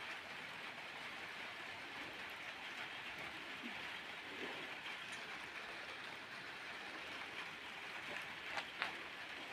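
Rain falling steadily, an even hiss, with two short sharp taps near the end.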